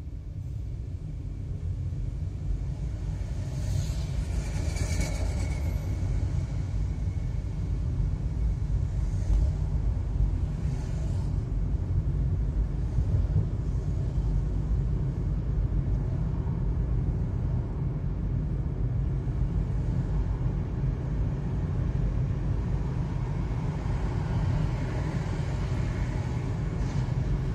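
Steady low rumble of road and engine noise heard from inside a car driving along a city street, with a brief hiss about four to five seconds in.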